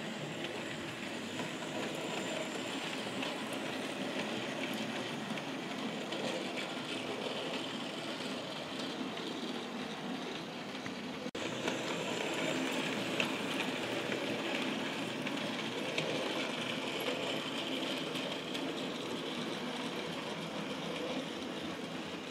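OO gauge model locomotive running along the layout's track: a steady whir of its electric motor and wheels on the rails. It becomes a little louder after a cut about eleven seconds in.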